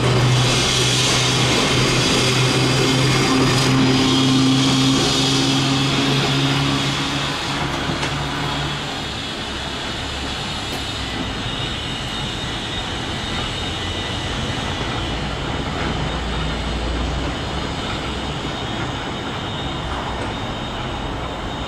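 1905 BC Electric interurban car 1207 running on its track, with a steady electric-motor hum over wheel-and-rail noise. The hum stops about nine seconds in, leaving quieter steady rumble.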